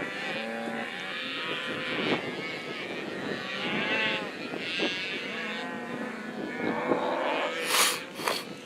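A herd of cattle mooing and bawling, many overlapping calls at once, from cows on a drive that are nervous and want to turn back. A brief rushing noise comes twice near the end.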